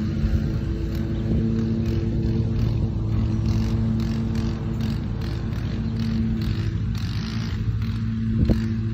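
An engine running steadily at an even pitch, with short scraping noises over it from about three seconds in and a single sharp knock near the end.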